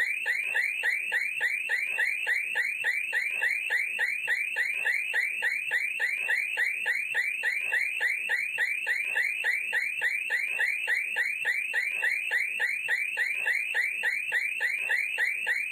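An electronic alarm siren warbling rapidly and steadily, about three or four rising-and-falling chirps a second.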